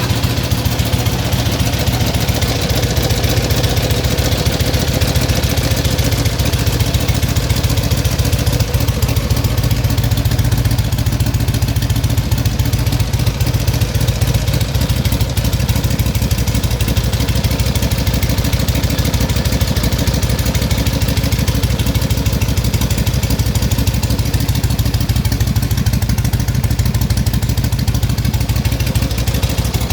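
Harley-Davidson XLH Sportster's air-cooled V-twin engine idling steadily, with an even low firing pulse and no change in speed.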